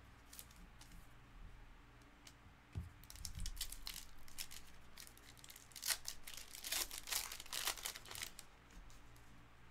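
A foil trading-card pack being torn open by hand and its wrapper crinkled as it is peeled off the cards. The crinkling starts about three seconds in and is loudest near the end.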